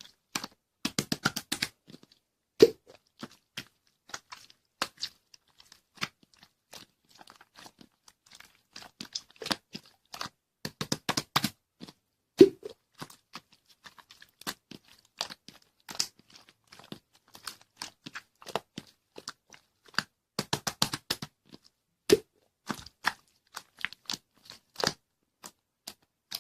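Close-up crunching and crackling: irregular clusters of quick sharp clicks, with three louder snaps spread through.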